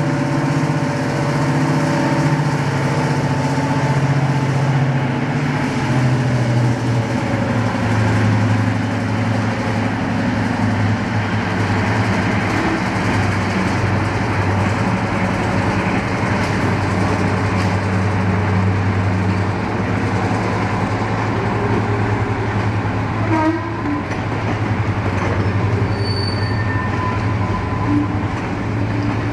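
Class 55 Deltic diesel locomotive's twin Napier Deltic two-stroke engines running with a deep, steady drone as the locomotive hauls its train away. The note drops to a lower, steadier pitch a few seconds in.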